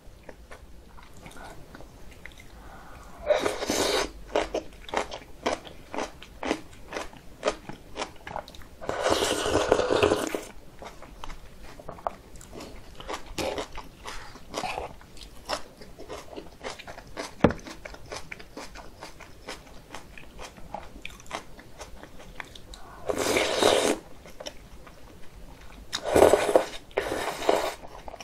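Close-miked eating sounds: steady chewing with many small wet clicks, broken four times by louder slurps of cold soy-milk noodles (kongguksu).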